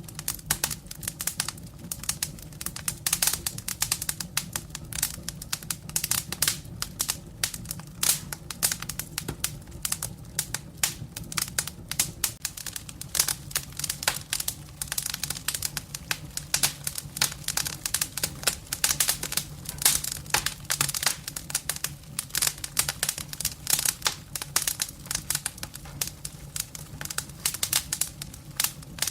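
Firewood burning in a fireplace, crackling with dense, irregular pops and snaps.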